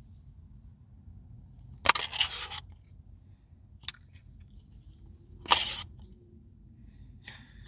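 A spoon scraping the inside of an ice cream cup in three short bursts, about two seconds apart, with a sharp click between the first two.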